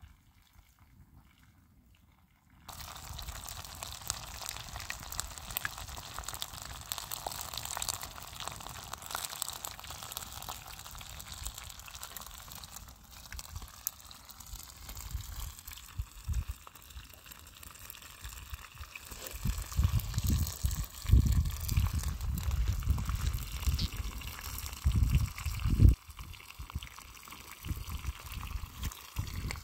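Wood fire crackling under a metal tin, with the contents hissing and bubbling. Loud low rumbling gusts come in and out from about two-thirds of the way through.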